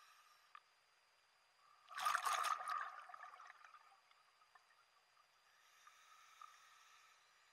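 Scuba diver breathing through a regulator underwater: a faint hissing inhale, then a loud rush of exhaled bubbles about two seconds in that trails off over a second or two, then another faint inhale near the end.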